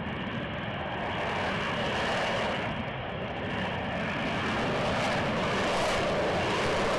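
F-35B stealth fighter's jet engine and lift fan running in hovering STOVL flight: a steady, dense jet rush that grows gradually louder.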